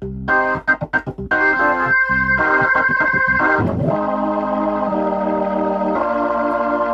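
Hammond organ played through a Leslie rotating speaker, picked up by a pair of microphones about three feet either side of the cabinet and panned hard left and right. Short stabbed chords come first, then long held chords, with a brief slide in pitch a little over halfway through.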